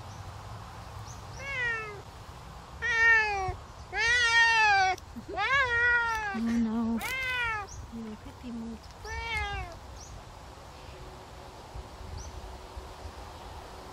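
Savannah cat meowing repeatedly, about six loud meows, most falling in pitch at the end, the longest lasting about a second.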